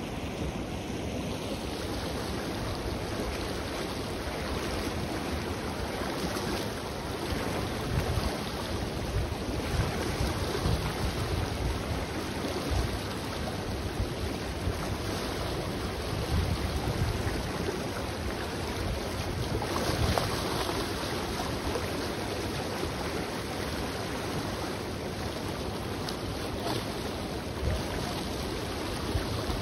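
The fast, turbulent Ganges (Ganga) river rushing and churning past in a steady, loud wash of water noise. Wind buffets the microphone in irregular gusts.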